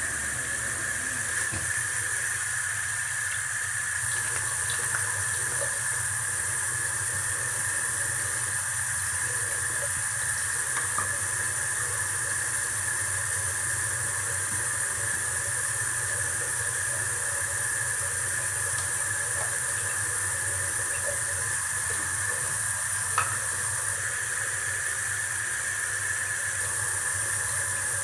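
Steady hissing noise with a low hum, unchanging throughout, with a few faint clicks, the most distinct about three-quarters of the way through.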